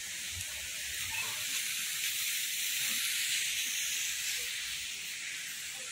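Steady high-pitched hiss without a pitch or rhythm.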